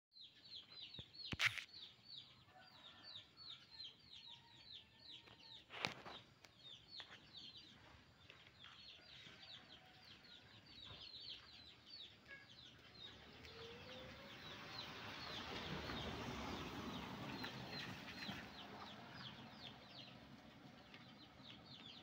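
Small birds chirping: a steady run of short, high, falling chirps, about four a second. Two sharp clicks come in the first few seconds, and a rushing noise swells and fades in the middle.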